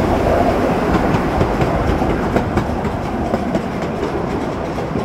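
Ole Smokey miniature amusement-park train running along its track, heard from aboard: a steady rolling rumble with scattered sharp clicks from the wheels and rails.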